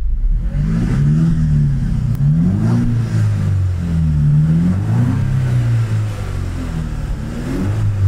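Jaguar F-Type's 2.0-litre four-cylinder engine revved from idle in about five throttle blips, each rising and falling back, through a Ragazzon aftermarket exhaust with a free-flow centre section and its exhaust valve open.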